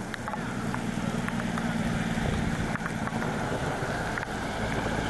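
Semi truck driving by on a hail- and slush-covered highway: a low steady diesel engine hum with tyres hissing through the slush, and scattered light ticks.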